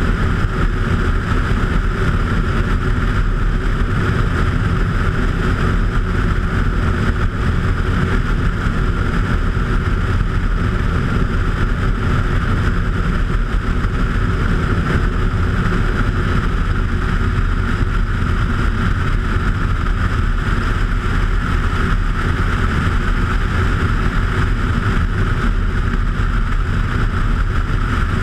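Bushcaddy ultralight floatplane's engine and propeller running steadily under power while the plane climbs, heard from a camera mounted outside under the wing.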